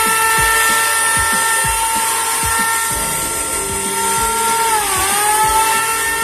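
Bosch GHO 6500 electric planer running with no load: its brushed motor and spinning cutter drum give a steady high whine. The pitch dips briefly and recovers about five seconds in. Freshly rebuilt with new bearings, armature and carbon brushes, it runs smoothly with no bearing noise.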